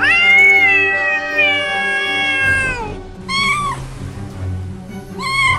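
A cat meowing: one long drawn-out meow, then two short meows, over background music.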